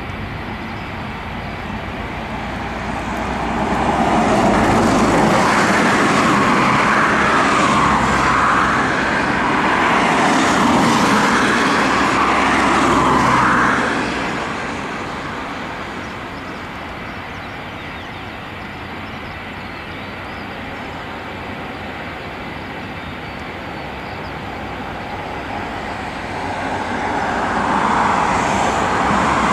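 Jet airliner engines at takeoff power: the roar swells as the aircraft accelerates past, holds loud for about ten seconds, then fades to a distant rumble. It starts building again near the end.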